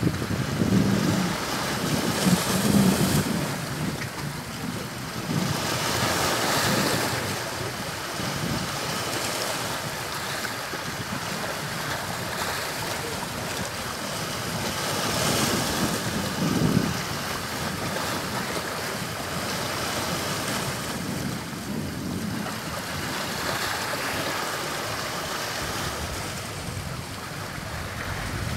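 Sea waves breaking and washing up a sandy shore, a steady surf hiss that swells as each wave comes in, every few seconds, with wind buffeting the microphone.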